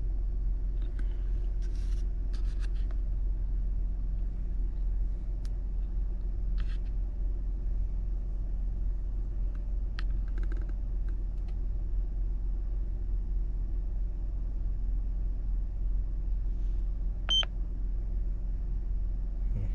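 Honda Odyssey's 3.5-litre V6 idling steadily, a low even drone. A few faint clicks and a single short electronic beep about 17 seconds in.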